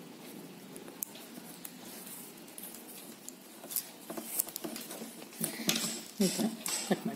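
Plastic basket-weaving wire being handled and pulled through knots by hand: faint rustling at first, then a run of crisp clicks and short squeaks from about four seconds in, busiest near the end.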